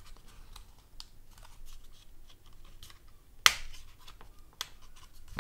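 Small plastic clicks and scrapes from a headphone ear cup being worked on by hand as the driver capsule is loosened from its clip-in holes, with one sharp, louder click about three and a half seconds in and a smaller one about a second later.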